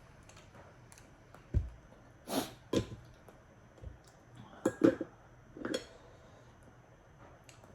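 Eating noises from someone eating raw oysters: about half a dozen short slurps and mouth sounds, with a low knock about a second and a half in.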